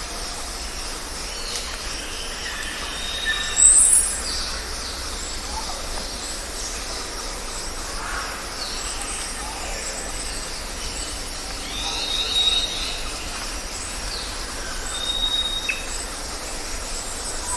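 Birds chirping and calling in a forest at dawn: scattered short chirps and quick glides over a steady high background hiss, a loud sharp high call about four seconds in, and a short held whistle note repeated several times.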